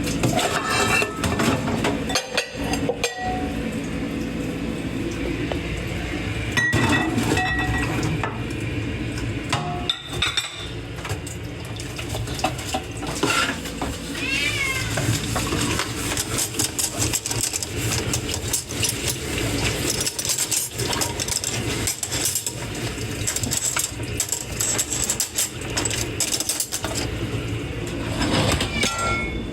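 Dishes and cutlery being washed by hand in a kitchen sink: a steady run of clinks, knocks and scraping over the wash noise. About halfway through, a cat gives a faint meow in the background.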